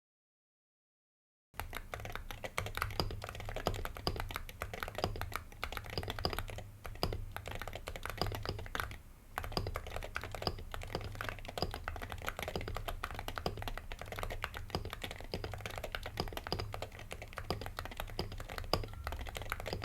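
Fast, continuous typing on ceramic keycaps over Gateron Lekker magnetic (Hall-effect) switches in a Wooting 60HE keyboard, many quick clicky keystrokes. The typing starts about a second and a half in, after a short silence.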